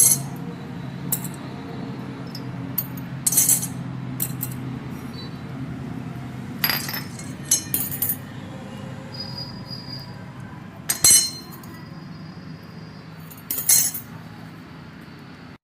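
Sharp metallic clinks and knocks of tools and metal parts being handled, coming irregularly every second or few, over a steady low hum.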